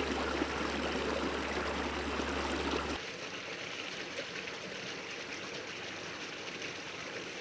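Stream water running steadily. About three seconds in, it drops suddenly to a quieter flow.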